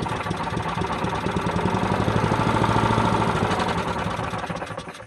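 Toro Super Recycler walk-behind mower engine running for about four seconds, then slowing and dying near the end. It runs only on starting fluid and stalls once that is used up; the owner believes fuel is not reaching the carburetor.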